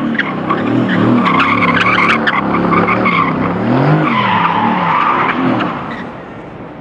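A car skidding with its tyres squealing in wavering pitches over the engine, fading away near the end.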